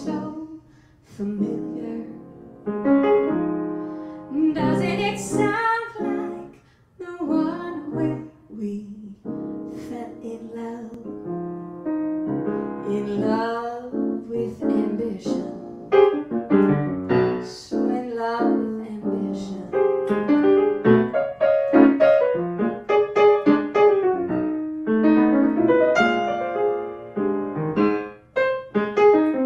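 Grand piano played solo with a woman singing along: a jazz-inflected song for voice and piano.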